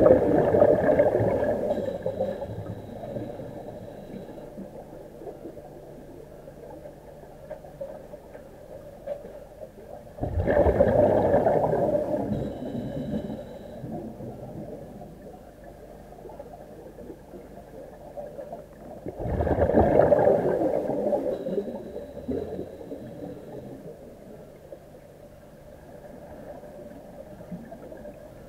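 Bubbles from a diver's IDA-59M rebreather gushing out, heard underwater, three times about nine to ten seconds apart, each fading over a couple of seconds, over a faint steady hum.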